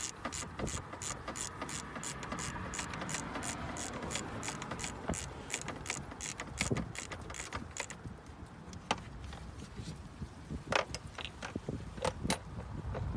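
Hand ratchet with a socket clicking in a rapid, even rhythm while the bottom bolts of an oil filter housing are run in. The clicking stops about eight seconds in, followed by a few scattered metal clicks and taps.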